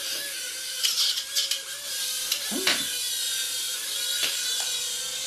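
Mini toy quadcopter's four tiny electric motors and propellers running with a steady high buzzing whine. A few sharp clicks or taps come about a second in, and one more near the end.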